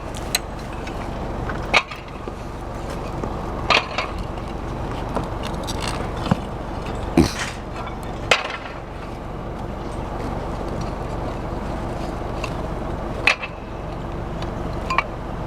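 Old Japanese clay roof tiles (kawara) being stripped off a roof: sharp knocks and clacks of tile on tile, about seven spread out over the stretch, over a steady background rumble.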